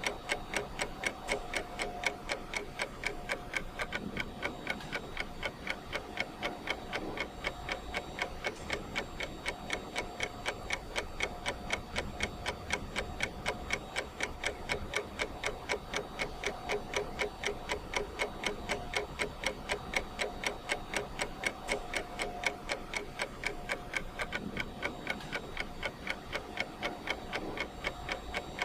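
Ticking clock sound effect of a countdown timer: steady, even ticks, a few a second, with no change in pace.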